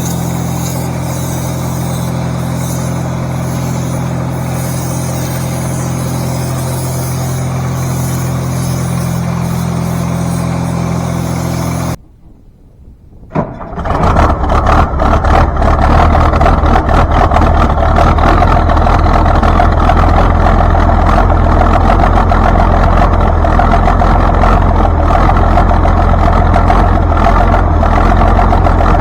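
Farm tractor diesel engine running steadily at idle. After a brief break about twelve seconds in, a louder, rougher engine runs on under way.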